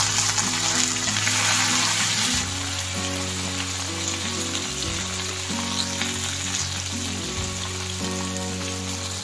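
Mixed vegetables sizzling in hot oil in a pan, just added. The sizzle is loudest for the first two seconds or so, then settles to a softer steady sizzle. Background music with held notes runs underneath.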